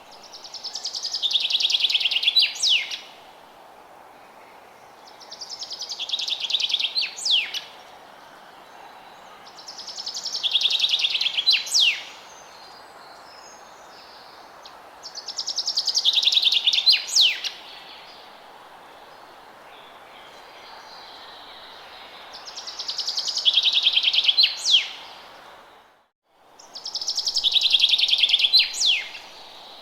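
A songbird singing the same song six times, about every five seconds. Each song is a fast trill of two to three seconds that falls in pitch and ends with a couple of sharp, quick notes, heard over a steady background hiss. The sound cuts out completely for a moment shortly before the last song.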